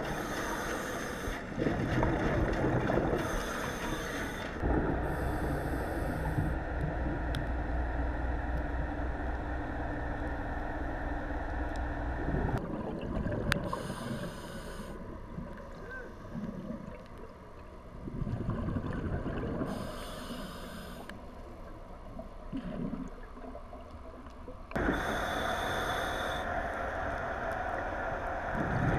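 Scuba diver breathing through a regulator underwater: a hissing inhalation every few seconds, with bubbling exhalations between them. A low steady hum sits under the first part and stops about twelve seconds in.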